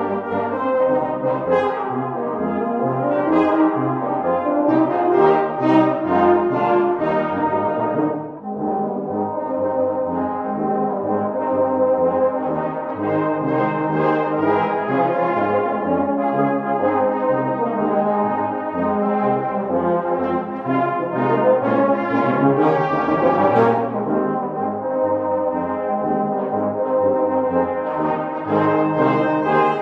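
Small Salvation Army brass band of cornets, tenor horns, euphonium, trombone and tuba playing a sustained ensemble piece, with a brief breath between phrases about eight seconds in.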